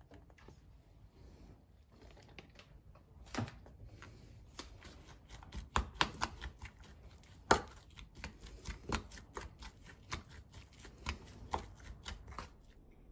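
Hand-mixing chopped green onion with mayonnaise and soy sauce in a stainless steel bowl: irregular clicks, knocks and scrapes of fingers and bowl, starting about three seconds in, with one sharp knock about halfway through.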